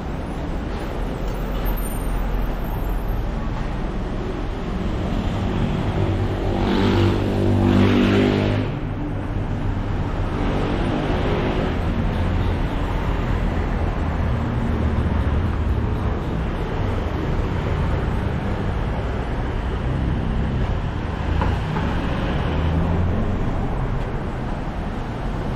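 Street traffic: cars and vans running along the road beside the sidewalk. One vehicle passes close, loudest about seven to eight seconds in.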